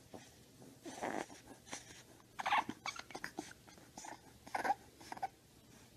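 Bulldog puppy making a string of short, quiet breathy sounds and small vocal noises, about seven of them spread over a few seconds.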